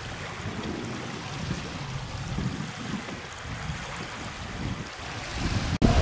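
Wind buffeting the microphone over the steady wash of Caspian Sea waves on the shore. The sound breaks off abruptly near the end and comes back louder.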